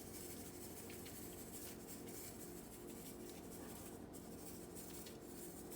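Faint, light scratching and patter of salt being sprinkled onto sliced tomatoes, over a low steady hum.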